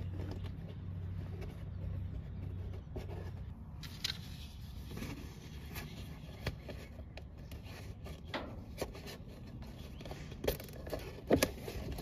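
A plastic zip tie being threaded through holes in a golf cart's plastic fender and cinched around a corrugated wiring harness: scattered light scrapes and clicks of handling, with a few sharper clicks near the end as the tie is pulled tight.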